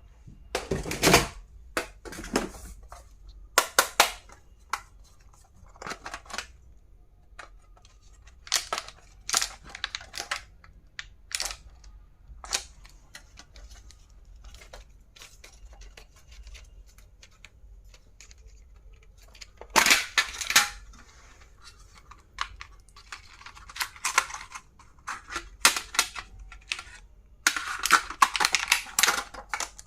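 Stationery items and their packaging being handled: irregular clicks and snaps with short bursts of rustling, the longest about two-thirds of the way through and again near the end.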